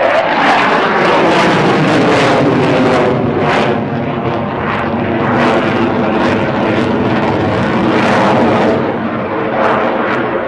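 Jet noise from an F-16 Fighting Falcon's engine as the fighter flies its display, loud and continuous. Its pitch glides down over the first couple of seconds as the jet passes.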